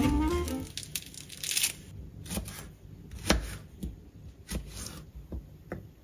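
Background music fading out, then soft rustling and a few scattered light clicks and taps of things being handled.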